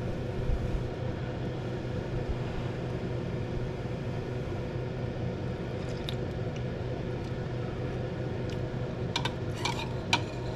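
Steady low mechanical hum, with a few light clinks of a spoon near the end.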